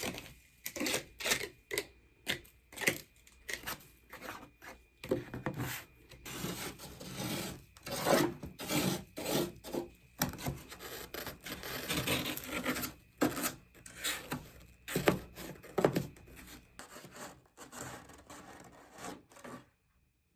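Frost being scraped off the inside of a freezer: a long run of irregular rasping scrapes, some short and sharp, some drawn out, stopping shortly before the end.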